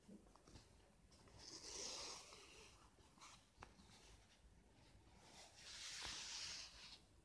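Faint rustle of cotton fabric being handled and shifted during hand sewing, swelling twice, with a few small ticks in between.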